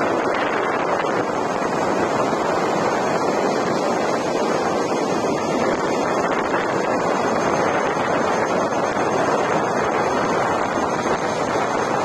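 Steady rushing noise of wind on the microphone mixed with the rolling tyre of a Gotway Tesla electric unicycle on rough asphalt, at an even speed.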